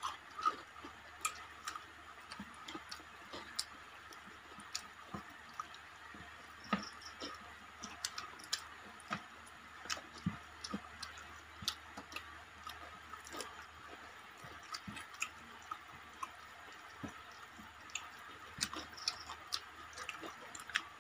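Quiet eating sounds: soft, irregular clicks and smacks of people chewing and picking at fried fish and rice with their fingers, over a faint steady hum.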